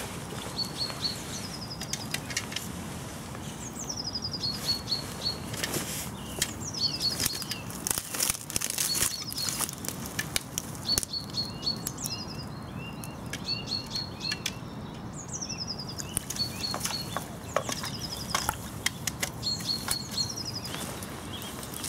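A small songbird singing the same short phrase over and over, every second and a half to two seconds: a quick falling whistle followed by a rapid run of four or five high repeated notes. Scattered clicks and knocks sound alongside, thickest in the middle.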